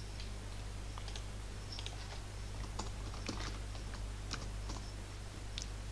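Typing on a computer keyboard: scattered, unhurried keystrokes over a steady low hum.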